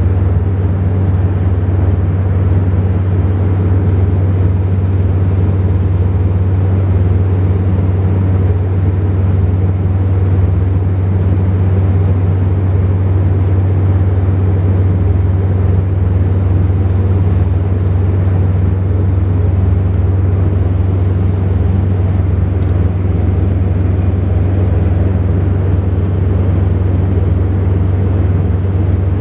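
Cabin noise inside a Saab 2000 turboprop airliner in flight: a steady low propeller drone from its two turboprop engines over an even rush of air, unchanging throughout.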